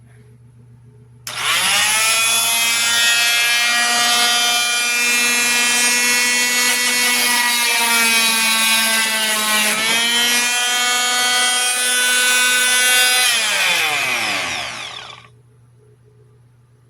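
Corded oscillating multi-tool switched on and running with a steady high whine. The pitch dips briefly and recovers about ten seconds in, then falls as the tool winds down and stops near the end.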